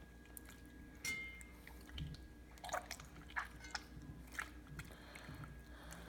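Freshly formed borax-and-glue slime being squeezed by hand over a bowl of borax water: faint, irregular wet squelches and drips.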